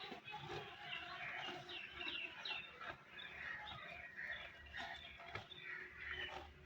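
Several birds chirping and calling at once, a busy chorus of short chirps throughout.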